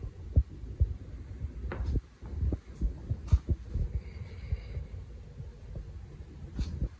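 Footsteps on a concrete floor and knocks from a handheld camera being carried: a run of uneven low thumps.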